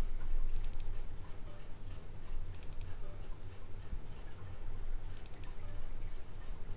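Computer mouse clicks: three quick double-clicks about two seconds apart, opening folders, over a low steady hum.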